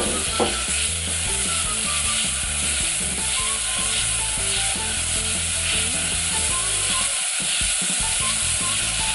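Seasoned beef pieces sizzling steadily in sesame oil in a nonstick pot over low heat, stirred and pushed around with a silicone spatula.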